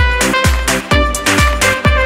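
Background electronic dance music: a steady kick drum about two beats a second under a bright synth melody.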